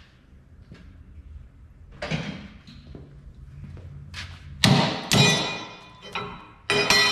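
Steel angle iron being knocked and clanked, a few separate sharp metal hits, the loudest in the second half, each leaving a ringing tone.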